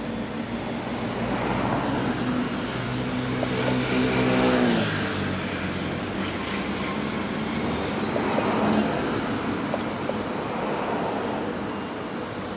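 Road traffic passing. One vehicle goes by about four to five seconds in, with its engine pitch dropping as it passes, and another goes by a few seconds later.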